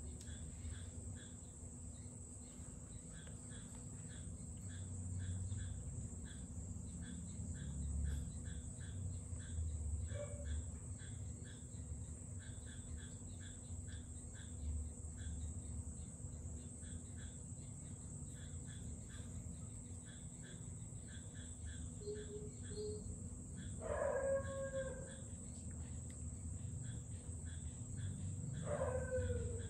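Baby macaque giving short coo calls that fall in pitch, a faint one early, then two clearer ones, about two-thirds of the way in and near the end.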